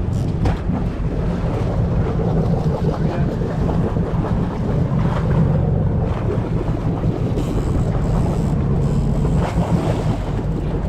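Steady wind buffeting the camera microphone on a boat at sea, a continuous low rumble with the wash of water beneath it.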